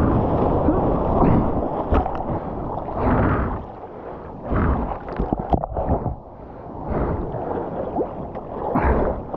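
Whitewash from a broken wave rushing and splashing around a surfboard, with wind buffeting the microphone. The rush is strongest at first, eases a few seconds in with a few sharp splashes, then swells again near the end.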